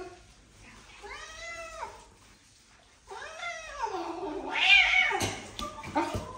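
Domestic cat meowing while being bathed in a tub of water: a short meow about a second in, then a longer, louder drawn-out yowl from about three seconds in.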